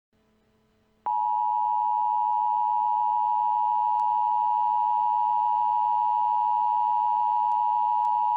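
Emergency Alert System attention signal: a steady two-tone alert tone that starts about a second in and holds unchanged. It marks the start of an emergency alert broadcast.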